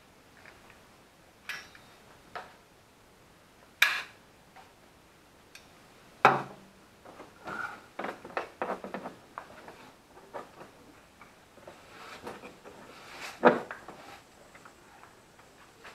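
Plastic cowl panel being pressed and seated by hand, giving a few sharp clicks and knocks, the loudest near the end, with rustling handling noise in between.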